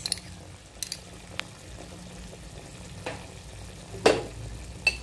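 Diced vegetables simmering in a little water in a frying pan, with scattered clicks of a metal spoon scraping tomato paste from a jar and a sharp knock about four seconds in.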